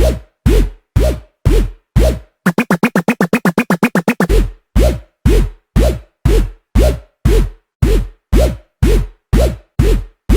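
Electronic music beat: a drum-machine kick drum hitting about twice a second, each hit dropping in pitch into a deep thump. From about two and a half to four seconds in it breaks into a fast roll of higher, quicker hits, then the steady kick returns.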